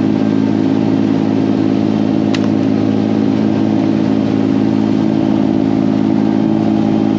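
Charter boat's engine running steadily under way, with the rush of the wake beneath it. A single light click about two and a half seconds in.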